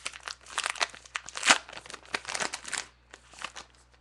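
Plastic wrapper of a Topps Gypsy Queen baseball card pack being torn open and crinkled by hand, a run of crackling rustles that dies down about three seconds in.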